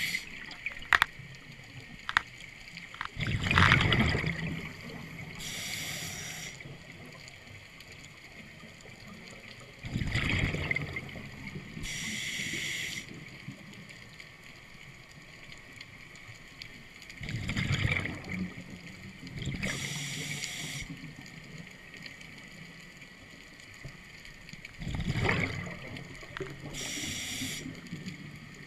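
Scuba diver breathing through a regulator, four slow breaths. Each starts with a gurgling rush of exhaled bubbles and is followed a couple of seconds later by the hiss of the demand valve on the inhale. A few sharp clicks of gear near the start.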